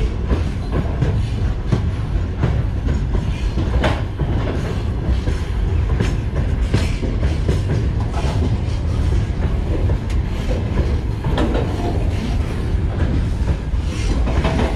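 Freight train of open gondola wagons rolling along the track: a steady low rumble with irregular clanks and wheel clicks.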